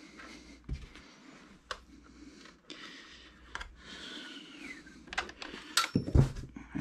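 Sparse light clicks and taps of small tools and metal parts being handled, with a soft thump near the end.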